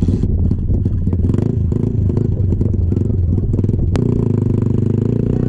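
ATV engine running steadily while riding, with a sharp click about four seconds in.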